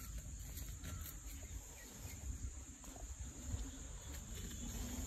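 Insects chirring steadily in a high, even band, with a faint low rumble underneath.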